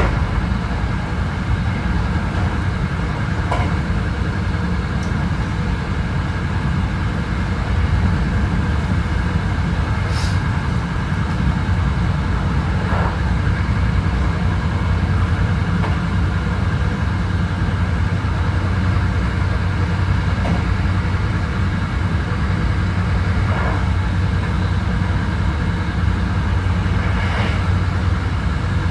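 Hankyu 9300 series electric train with a Toyo IGBT inverter, heard from inside the car while running at a steady speed. A steady low rumble of wheels on rail is broken by a few faint clicks from the track.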